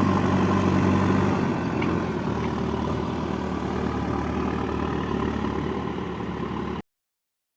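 JCB 3DX backhoe loader's diesel engine running steadily near idle, easing down slightly a little over a second in. The sound cuts off abruptly near the end.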